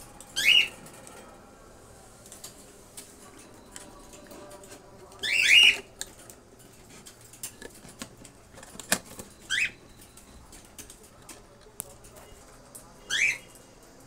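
Cockatiels giving short high calls that fall in pitch, four times: near the start, a double call about five seconds in, then two more. Faint scattered clicks and taps between the calls.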